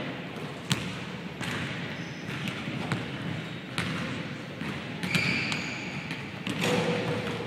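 Basketballs bouncing on a hardwood gym floor, sharp thuds about a second apart, with a brief high squeak about five seconds in.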